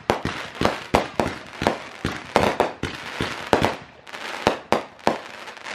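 Fireworks display: a quick run of sharp bangs, about two or three a second, as shells go up and burst, with crackling between them.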